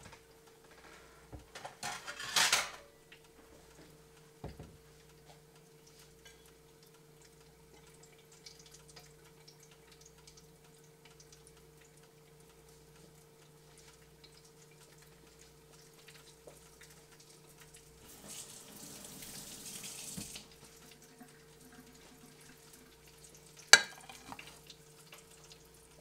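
Electric deep fryer frying spring rolls with its lid closed: faint sizzling over a steady low hum. There is a louder burst of hissing about two seconds in, a softer stretch of sizzle later on, and a sharp click near the end.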